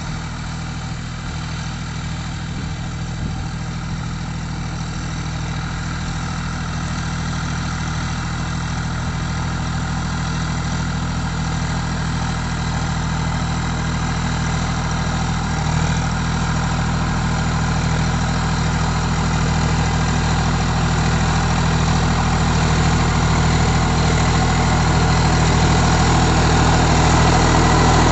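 Preet tractor's diesel engine running steadily as it pulls a mounted plough through the soil, growing gradually louder as the tractor comes closer.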